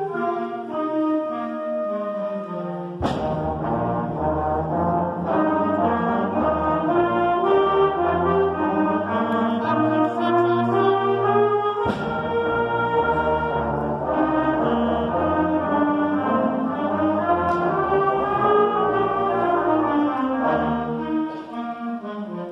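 8th grade concert band playing a slow, sustained piece: mid and high winds at first, then the full band with low brass coming in on a sharp accent hit about three seconds in. There is a second accent hit about twelve seconds in, and the low notes drop away near the end.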